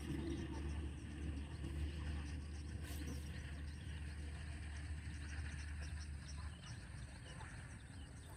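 Outdoor rice-field ambience: faint insect and bird chirping over a steady low rumble.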